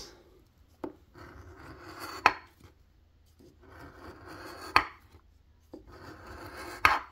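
A large metal coin scraping the scratch-off coating from a lottery ticket in three passes of about a second and a half each. Each pass ends in a sharp click of the coin on the card.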